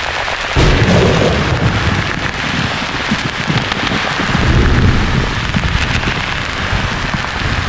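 Thunder rumbling over a steady white-noise hiss. The deep rumble starts suddenly about half a second in and swells again in the second half.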